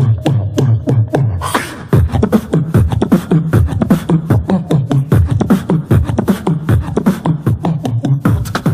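Beatboxing: one person's mouth making a fast drum-machine beat of deep kick drums and bass notes, with sharp hi-hat and snare clicks. The beat breaks off briefly just before two seconds in, then picks up again.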